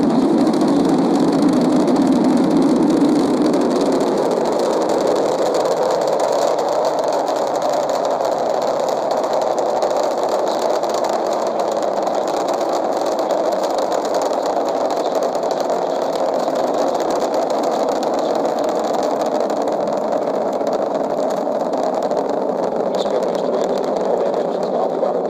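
Space Shuttle's rocket engines firing during ascent: a loud, steady, dense rush of noise that sits slightly lower for the first few seconds.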